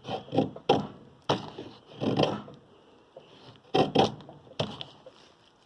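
Boker Magnum Chainsaw Attendant knife shaving curls off a dry piece of wood for feather sticks: about eight short scraping strokes at uneven spacing. The owner finds the factory edge not quite sharp enough, so the blade has to be pushed down hard.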